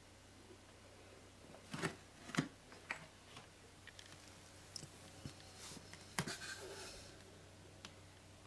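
A handful of light clicks and knocks, about six spread over a few seconds with the sharpest two near the start, and a soft rustle shortly after the middle, over quiet room tone.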